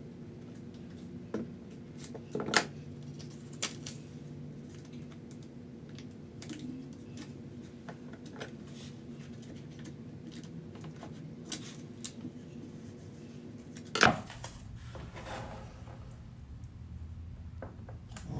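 Scattered clicks and knocks of small tools and parts being handled at a cue lathe, over a steady electric hum. The loudest knocks come about two and a half seconds in and about fourteen seconds in.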